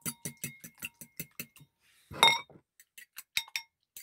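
Metal fork beating raw eggs in a ceramic bowl: quick clinks against the bowl's side at about five a second, with the bowl ringing faintly. A short pause, then one louder ringing clink a little after two seconds, and a few slower clinks near the end.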